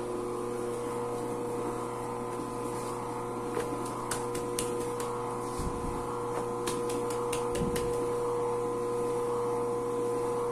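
Electric dough sheeter's motor running with a steady hum. Two soft thuds come about halfway through.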